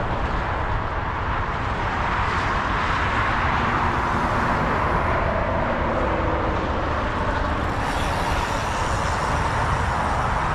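Steady roar of freeway traffic with a low rumble underneath; a higher hiss joins about eight seconds in.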